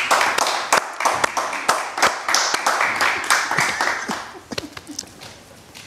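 A small group of people clapping, with quick, overlapping claps that thin out and die away about four and a half seconds in.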